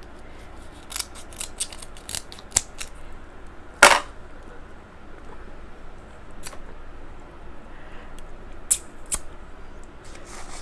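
King crab leg shells being cracked and snapped open, a series of sharp cracks in irregular clusters, the loudest about four seconds in.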